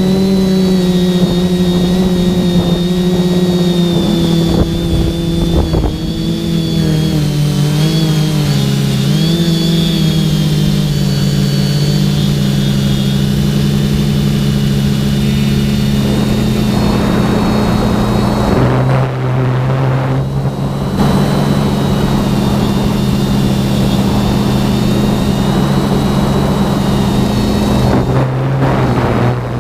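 Quadcopter's brushless motors and propellers running with a loud, steady buzzing whine, the pitch wavering and dipping with throttle changes. From about halfway in, a rushing of air joins it.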